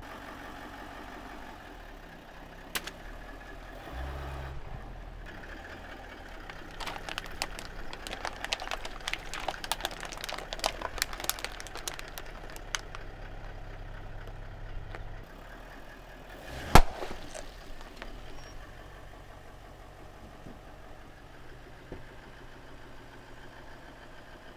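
Car engine running at low speed while a tyre rolls over plastic cups of water: a dense run of sharp cracks and crunches as they split. Later comes one loud pop, a liquid-filled balloon bursting under the tyre.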